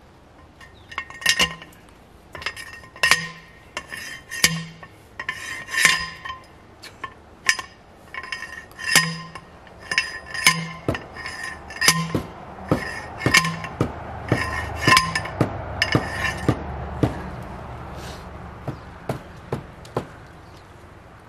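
Hand post driver pounding a steel T-post into the ground: a series of ringing metal-on-metal clanks, about one every second and a half at first, then quicker, about two a second, before thinning out and stopping near the end.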